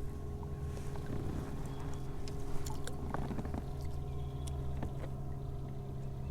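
A steady low mechanical hum with several constant tones, with scattered light clicks and taps over it.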